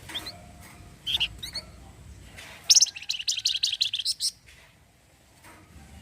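Flamboyan songbird calling: a few short high chirps, then about 2.7 seconds in a loud, rapid rattling trill (its 'cretet' call) of quickly repeated high notes lasting about a second and a half.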